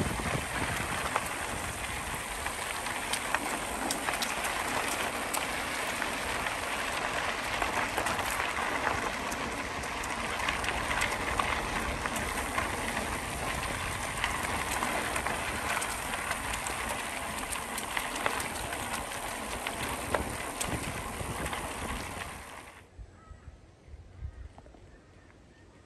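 Bicycle tyres rolling along the rail trail with wind on the microphone while riding: a steady rushing noise with fine crackling, which falls away to quiet about three seconds before the end.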